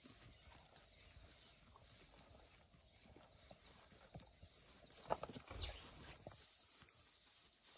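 Faint outdoor ambience: soft rustling and steps in dry grass over a steady high insect drone, with a brief sharp sound about five seconds in.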